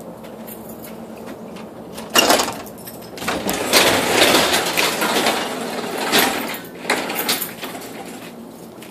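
Panelled garage door being lifted by hand: a sudden clatter about two seconds in as it starts up, a few seconds of rattling as it rolls up its tracks, then a couple of knocks as it comes to a stop.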